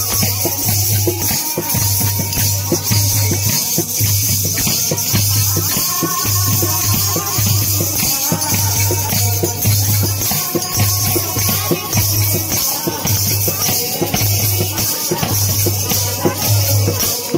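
Music with a steady deep beat about once a second and shaking, rattling percussion, with hands clapping along.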